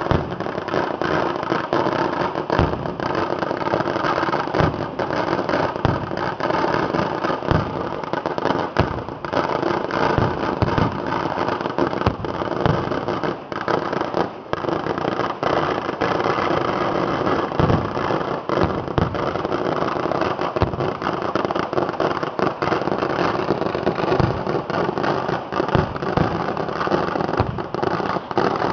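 Fireworks display going off without a break: a dense run of firecracker bangs and crackling over a continuous rushing hiss from spark fountains.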